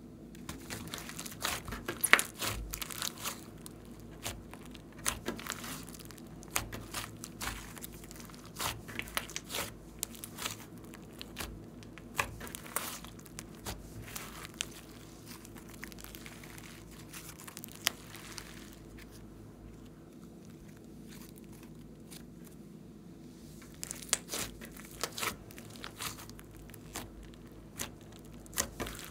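Hands stretching, pressing and kneading a thick, fluffy slime, with quick sharp crackles and pops as air pockets in it burst. The crackling is busiest for the first dozen seconds and again near the end, with a sparser stretch in between.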